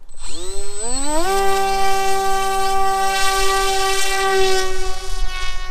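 Electric motor and propeller of an FPV fixed-wing plane throttling up at hand launch: a whine that climbs steeply in pitch over about a second, then holds a steady pitched drone as the plane flies off.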